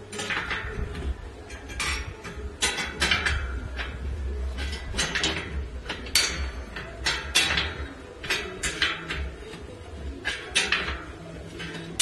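Irregular clacks and knocks of a rubber tyre and metal bicycle rim being handled as the tyre is worked around the wheel's edge, often coming in quick pairs.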